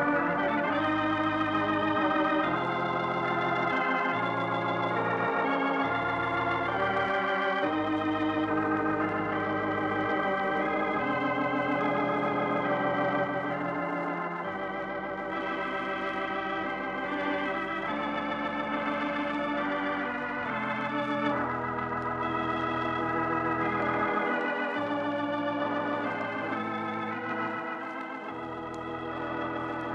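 Organ music: sustained chords with a wavering vibrato, changing every second or two, a little softer in the second half.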